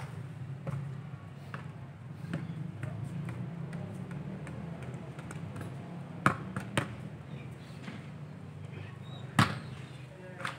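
A football being kicked: a few sharp thuds, the loudest two close together past the middle and another later, over a steady low hum.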